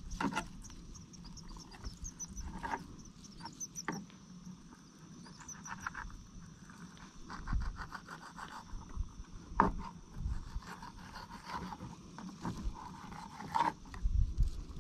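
Scattered scrapes and clicks of a knife working on small yellow bullhead catfish as they are cleaned, over a faint steady high chirring of insects.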